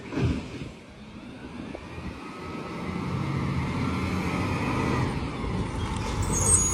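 Garbage truck's diesel engine approaching and growing steadily louder, after a short low thump at the start. Near the end a high brake squeal sets in as the truck pulls up.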